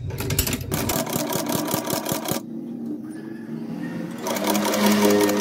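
Heavy-duty shoe-repair sewing machine stitching through the layers of a reattached bag handle, a rapid even run of about seven stitches a second. It stops for a moment a little after two seconds, then starts stitching again about four seconds in.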